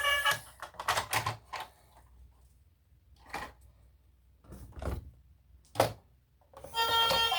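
A series of separate sharp clicks and knocks: several close together early on, then single ones spread out, the loudest a little before the music comes back. Background music plays briefly at the start and returns near the end.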